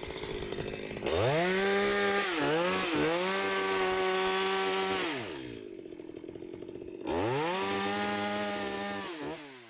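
Chainsaw cutting downed tree limbs, revved up to full throttle twice with a drop back to idle in between. Its pitch dips briefly a couple of times as the chain bites into the wood.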